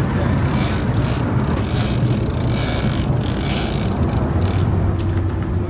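Boat engine running with a steady low rumble, under a rushing noise of wind and water that swells and fades every second or so.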